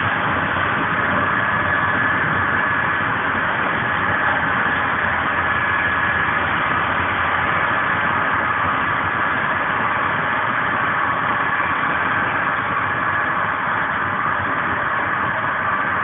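Steady running noise of an Intercidades passenger train heard from on board: an even rumble and rush of wheels on rail and air, with a faint high steady whine.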